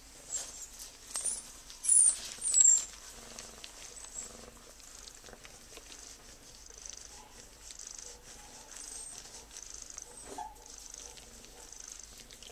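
Domestic cat purring softly while being stroked. A few short, high-pitched squeaks in the first three seconds are the loudest sounds.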